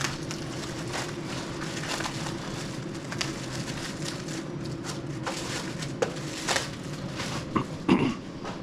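Scattered clicks and knocks of small hand tools and metal parts, as the nuts on a vending machine's bracket are worked loose. A steady low hum runs underneath, and the loudest knock comes near the end.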